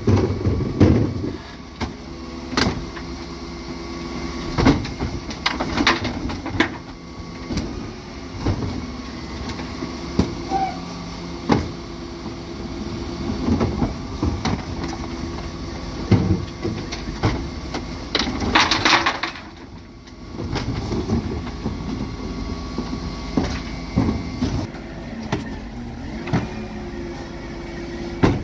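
Dennis Elite 6 refuse truck running with a steady hum while plastic wheelie bins clatter and knock against the Terberg OmniDe bin lift as they are loaded. A brief rush of hiss comes about two-thirds through.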